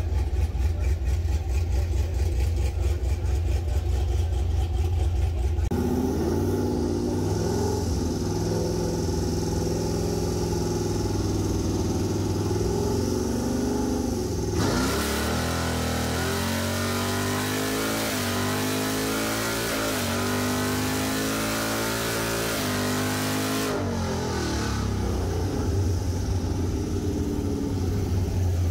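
Square-body Chevy pickup's engine on a hub dyno: idling, then running up in gear, and from about halfway a full-throttle pull with the pitch climbing and dropping back at each of several upshifts. The engine then winds down to idle near the end.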